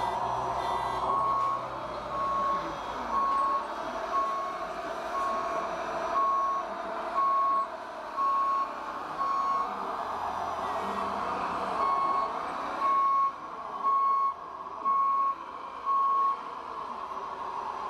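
Reversing warning beeps from a radio-controlled model truck, a single high beep about once a second in two runs with a break of about two seconds between them. Under them runs a steady engine-like hum, with a motor whine rising and falling in pitch midway.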